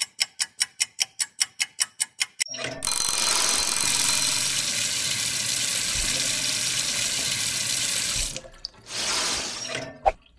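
Rapid clock ticking, about six ticks a second, for the first two seconds, then water running from a tap into a drain. The water runs steadily for about five seconds, stops, and comes back briefly near the end.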